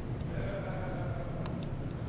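Steady low hum of a busy exhibition hall, with a faint distant voice-like tone in the middle and one sharp click about one and a half seconds in.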